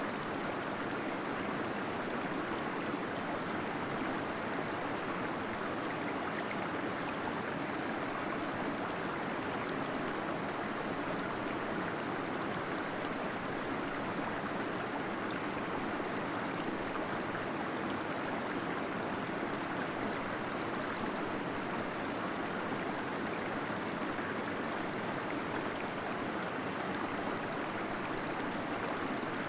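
Small waterfall splashing steadily in a cave, a constant rush of flowing water with gurgling.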